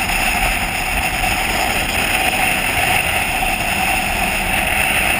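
Motorcycle cruising at a steady speed, heard from a camera mounted on the bike: an even rush of engine and wind noise.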